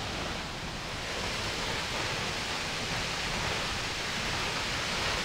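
Steady rushing of Akaka Falls, a tall plunge waterfall heard from across the gorge. The hiss fills out a little about a second and a half in.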